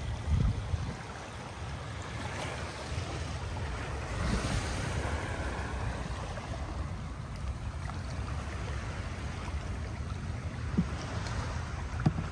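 Wind buffeting the microphone over lapping bay water, with louder swells of splashing about half a second in and about four seconds in.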